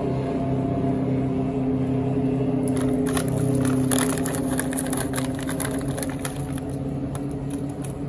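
Steady low mechanical hum with a fixed pitch. About three seconds in, a run of irregular crinkly crackles joins it and thins out toward the end.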